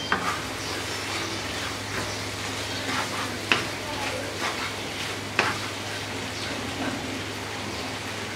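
Wooden spatula stirring thick taro leaves (kochu shak) in a wok, the mixture sizzling steadily over medium-low heat, with a few sharp knocks of the spatula against the pan, two of them about three and a half and five and a half seconds in.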